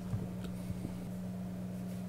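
Faint handling sounds: a few light clicks and taps as a battery and its wires are fitted into an opened plastic air duster housing, over a low steady hum.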